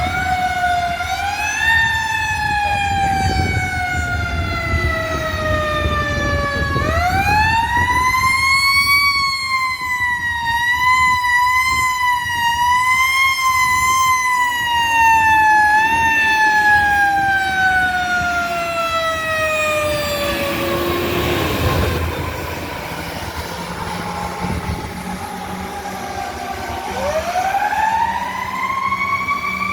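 Fire apparatus siren wailing: it winds up quickly and then falls slowly in long wails, three times, with the pitch wavering in the middle wail. There is a lull about two thirds of the way through, and it winds up again near the end. The truck's engine rumbles underneath.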